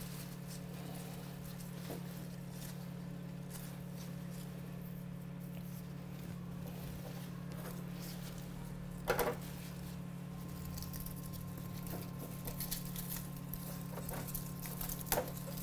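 Plant leaves being handled: soft rustles, one louder rustle about nine seconds in and a few small clicks near the end, over a steady low hum.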